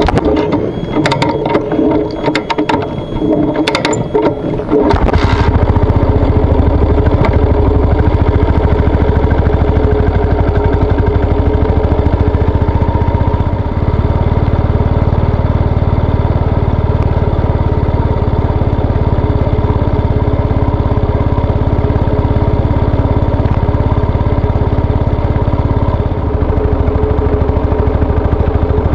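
Yamaha SR400 motorcycle's single-cylinder engine running steadily, coming in abruptly about five seconds in after a few seconds of sharp clicks and crackles.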